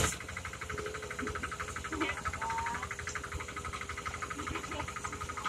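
Two-wheel hand tractor's single-cylinder diesel engine running under way while pulling a trailer, a rapid, even chugging.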